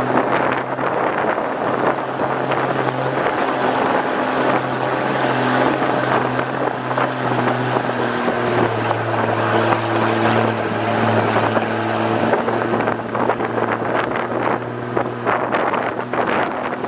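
Small motorcycle engine running steadily under way, with wind buffeting the microphone; the engine note drops a little about halfway through.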